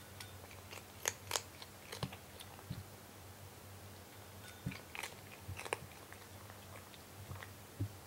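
A cat eating dry kibble from a glass bowl: irregular crunching, with the sharpest crunches about a second in and around five seconds in.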